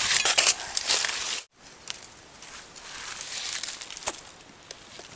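Dry bamboo leaves and twigs crackling and rustling as someone moves through leaf litter. It is loud at first and cuts out suddenly about a second and a half in, then goes on as quieter rustling with a few sharp snaps.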